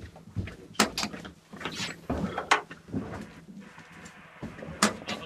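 Hands grabbing and handling an old radio: a string of sharp knocks and clicks against its casing with rustling between them, the loudest about a second in, midway and near the end.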